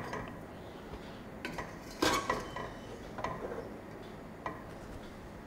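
A steel thali being set down inside a steel steamer pot, knocking and clinking against the pot and the trivet stand inside it: a few light metal knocks, the loudest about two seconds in.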